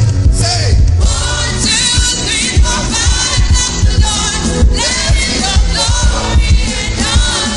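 Gospel worship music: group singing over a band with a steady drum beat.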